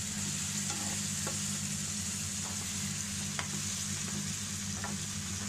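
Onion and tomato paste frying in hot oil in a pan, a steady sizzle as the masala cooks down. A metal spatula stirs it, with a few sharp ticks against the pan, over a steady low hum.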